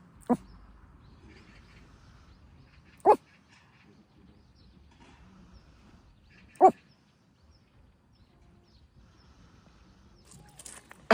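A dog barking: three single short barks a few seconds apart.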